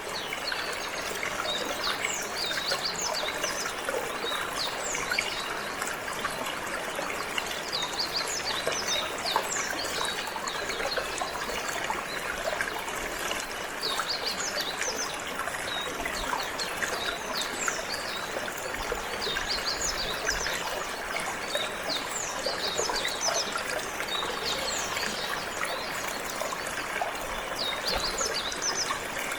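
Steady trickling of flowing water, with a canary singing over it in many quick, high chirps throughout.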